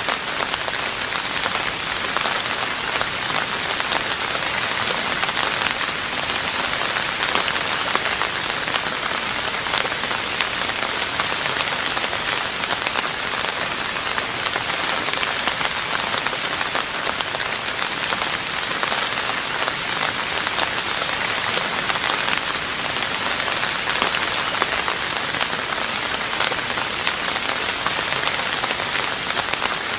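Rain falling on a roof: a steady, even patter of many drops that neither swells nor fades.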